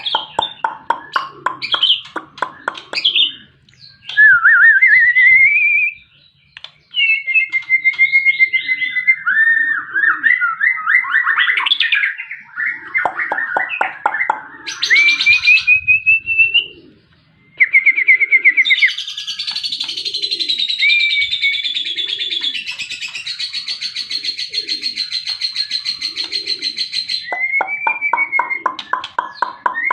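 White-rumped shama singing a varied song: fast rattling trills, rising whistled notes, and a long scratchy buzzing phrase in the middle. A soft low note repeats about once a second underneath.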